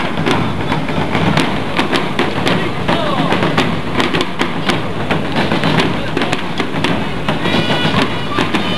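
Street parade din: many voices talking over one another, with irregular sharp cracks and knocks throughout. Near the end a few held high-pitched tones sound.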